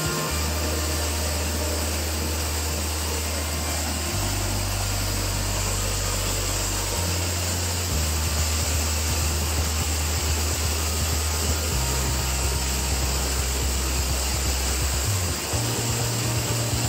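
Steady rush of a waterfall and stream. Under it, background music of low held bass notes that change every few seconds.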